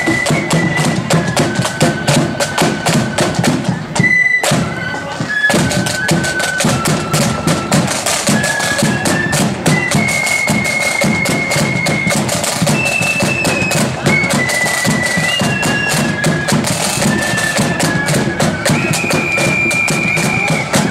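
Loyalist marching flute band playing a tune: high, sustained flute melody over rapid snare drumming and bass drum, with a short break in the drumming about four seconds in.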